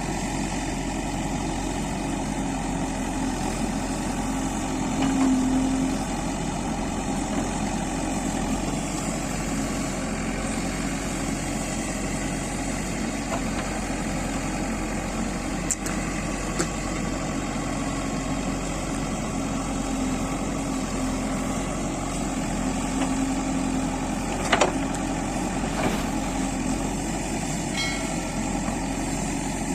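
Backhoe loader's diesel engine running steadily, swelling briefly twice, with a few short knocks.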